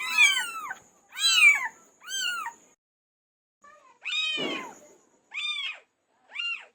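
Domestic cat meowing repeatedly: three meows in quick succession, a pause of about a second, then one longer, louder meow followed by two shorter ones.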